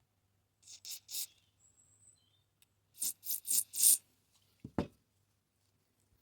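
Short hissing bursts from an aerosol spray can squirted onto carburettor parts: three quick bursts, then a pause, then four more in quick succession. A single knock follows a little later.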